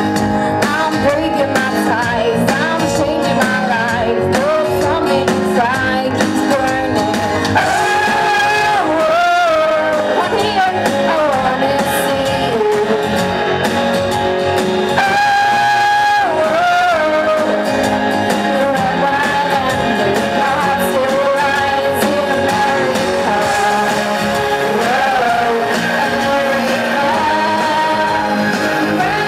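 A woman singing live into a microphone over amplified backing music, the melody held and bending in long sung phrases.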